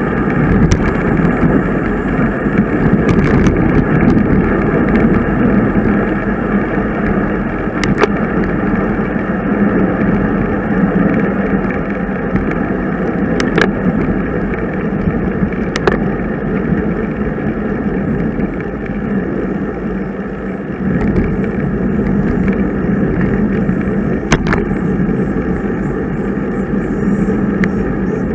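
Steady wind and road noise on a bicycle-mounted camera while riding, with a few sharp clicks.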